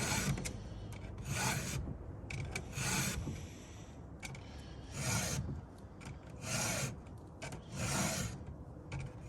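Stihl 2-in-1 file guide being pushed across a saw chain's cutters, its round and flat files rasping on the steel teeth in about six even strokes, one roughly every one and a half seconds.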